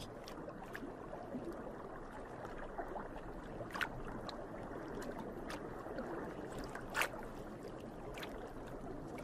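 Steady underwater water ambience, a soft even rush with a few scattered sharp clicks, the clearest about 4 and 7 seconds in.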